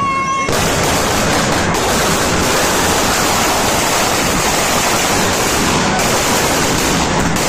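Loud, steady rushing crackle of many firecrackers going off at once, the kind packed inside a burning Dussehra effigy.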